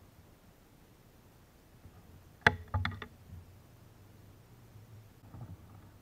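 Mostly quiet, with one sharp knock about two and a half seconds in and two smaller knocks right after, then a few faint clicks near the end: handling noise as a caught largemouth bass is unhooked and lifted in a plastic kayak.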